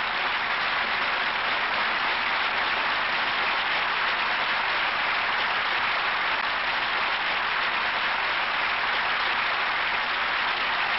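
An audience applauding steadily: many people clapping at once, with no let-up.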